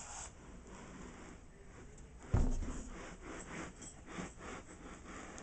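A single dull thump about two seconds in, followed by soft, irregular rustling and scraping, like a body or object shifting on carpet close by.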